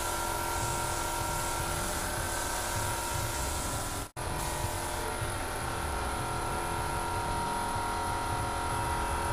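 Gravity-feed paint spray gun hissing steadily as it sprays, over the even mechanical hum of the air compressor feeding it. The sound breaks off for an instant about four seconds in, then carries on unchanged.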